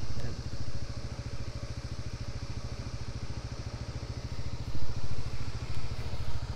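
Kymco KRV 180 scooter's single-cylinder engine idling with a steady, even low pulse, swelling briefly about five seconds in.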